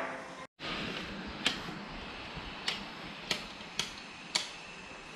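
Five short, sharp clicks, irregularly spaced about half a second to a second apart, over a faint steady hiss; the sound cuts out briefly about half a second in.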